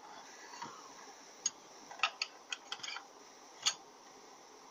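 Steel selector shaft being slid by hand into the aluminium case of a Mazda FN4AEL / Ford 4F27E automatic transmission, giving a string of light metallic clicks and taps. There are about seven sharp ticks, bunched between about one and a half and four seconds in.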